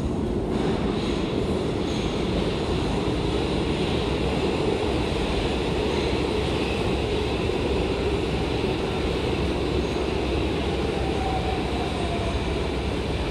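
Metro train running through an underground station, a steady heavy rumble with a faint falling whine near the end.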